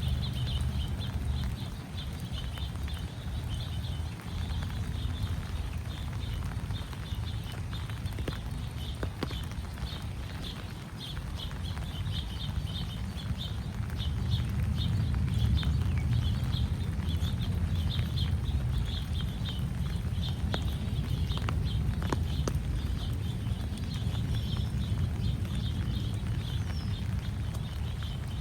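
Footsteps on a wet park path, over a strong low rumble on the microphone. A continuous rapid, high-pitched chirping goes on in the background.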